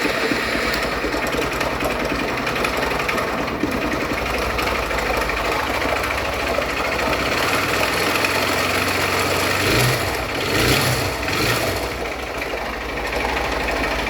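Honda Bros 160 single-cylinder engine running with a fast mechanical clatter, briefly louder about ten seconds in. The noise is the sign of a ruined engine, which the mechanic believes seized.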